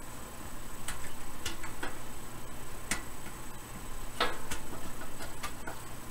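Irregular light clicks and taps of a clear dial cover being handled and seated into the metal front panel of a Hallicrafters S-38 radio cabinet, with a short scrape about four seconds in.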